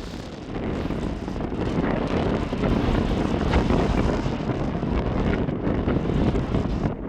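Heavy wind noise on the microphone of a motorcycle riding on a gravel road, with the motorcycle's engine and tyres underneath it. It gets louder about half a second in.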